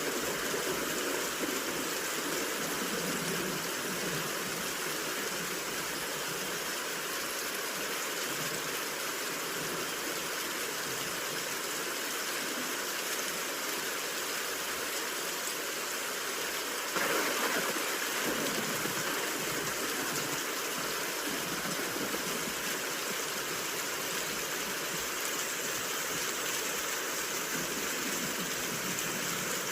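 Steady rain hiss blended with white noise, an even wash with no separate drops or thunder. It swells briefly a little past the middle.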